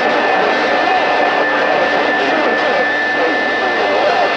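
CB radio receiver static: a steady rush of noise with faint, garbled voices wavering under it and a thin steady whistle.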